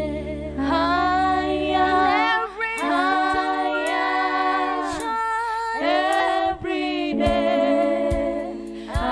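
Group of women singing a slow worship song in harmony, several voices moving together in long phrases. A low, steady held note sounds beneath them for the first two seconds.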